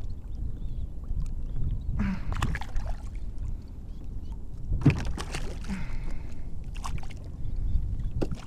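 Water splashing and sloshing against a fishing kayak as a queenfish is held in the water and released, over a steady low rumble of water on the microphone. The sharpest splashes come about two seconds in and again about five seconds in.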